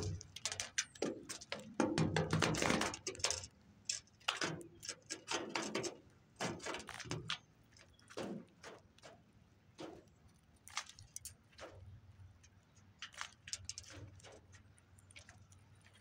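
American goldfinches pecking and cracking seed on a platform feeder close to the microphone: quick, irregular clicks and taps, thickest in the first half with a louder cluster of knocks about two to three seconds in, then sparser.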